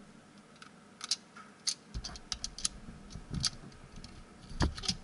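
Irregular light plastic clicks and taps from a small McDonald's Happy Meal Minion toy being handled, its head pressed to work the hula-hoop spinning mechanism, with a few heavier knocks about two seconds in and near the end.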